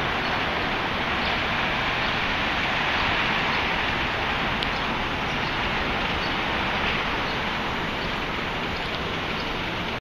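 Steady outdoor city street noise: a continuous even rushing roar with no distinct events.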